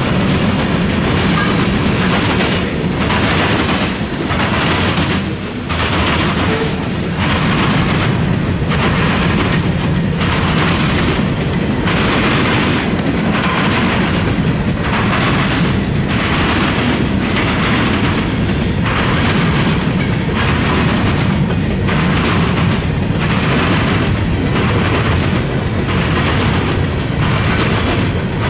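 Freight train of covered hopper cars rolling past close by: a steady rumble with rhythmic wheel clacks about once a second.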